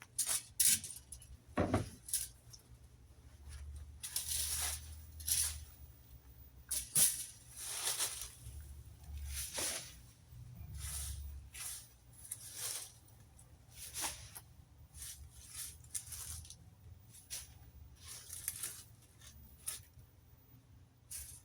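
Repeated scraping and rustling strokes, like a rake dragging through dry leaves and yard debris, coming irregularly about once every second or two.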